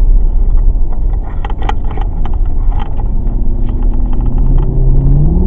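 Mercedes CLK 63 AMG's 6.2-litre V8 running under road-test load with no misfire, a steady low rumble with road noise, then the engine note rising as the car accelerates through the last second and a half or so.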